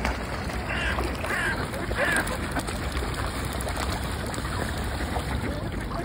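Water sloshing among a crowd of swans and ducks swimming close by, with a few short bird calls about a second and two seconds in.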